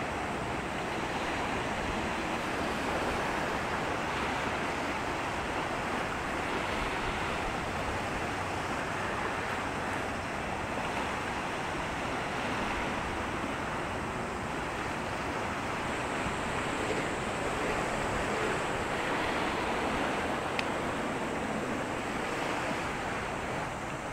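Steady rush of water washing and wind, with no distinct engine note.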